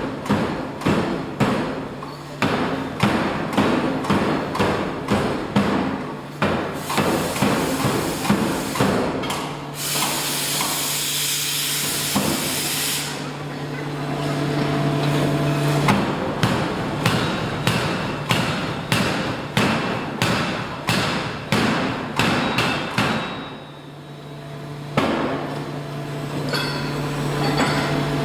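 Forging hammer pounding hot metal in quick, even blows, about two to three a second. The blows stop for a few seconds while a loud hiss and a steady low machine hum take over, then resume.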